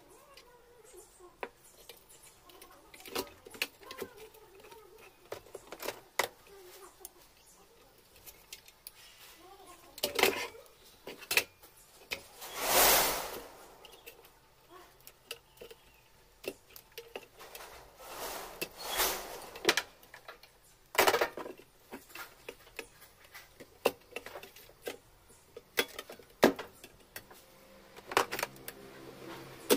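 Handling noise from an opened electric hot plate under repair: scattered clicks, taps and rattles of wire connectors and the metal housing being worked by hand, with a few louder knocks and one longer rustling noise of about a second near the middle.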